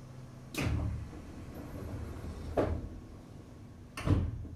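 Sliding passenger doors of a Seibu 4000 series train closing, heard from inside the car: a sudden start about half a second in, a knock in the middle, and the loudest thud near the end as the doors shut.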